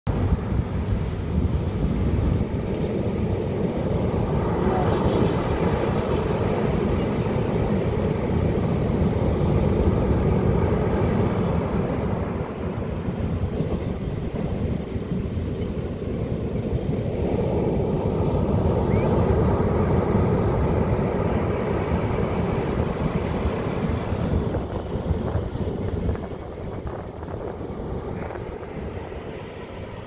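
Ocean surf breaking on a sandy beach: a continuous rush of waves that swells twice and eases near the end.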